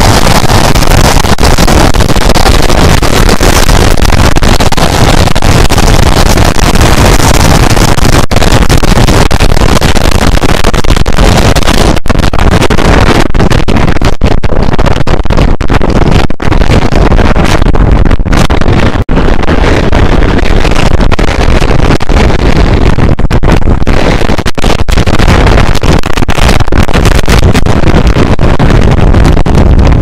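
Loud, distorted wind noise buffeting the microphone of a camera on a moving motorcycle, with brief dropouts in the second half.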